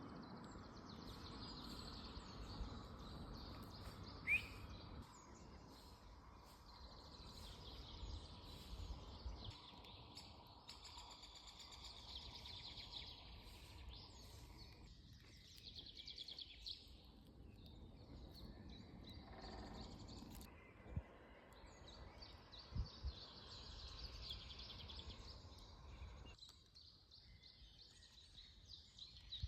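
Faint songbird song: several birds chirping and trilling on and off, with one sharp rising chirp about four seconds in, over a low rumble of background noise and a couple of soft thumps past the middle.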